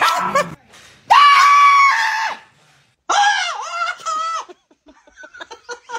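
Two loud, high-pitched screams: the first held steady for about a second before falling away, the second, a couple of seconds in, wavering in pitch. A run of short rapid clicks follows near the end.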